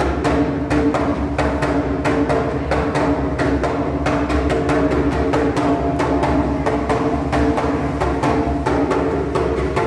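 Music: rapid, even percussion strikes, about four a second, over a held drone of two steady tones.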